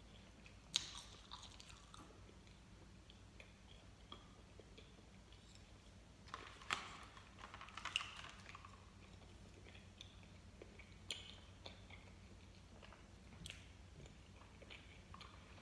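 Faint chewing of soft gummy candy, with scattered small clicks and smacks. About halfway through, chopsticks click against the plastic candy tray as a piece is picked up.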